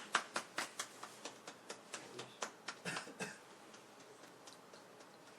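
Hand clapping from a small group, a quick even beat of about five claps a second that thins and dies away about three seconds in, leaving faint room tone with a few soft ticks.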